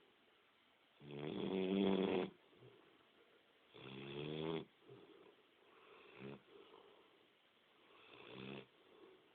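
Snoring: four snores about two and a half seconds apart, the first two the loudest.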